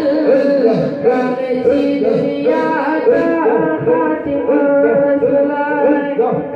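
A man singing devotional verses from a booklet into a microphone, the melody rising and falling in short, ornamented phrases.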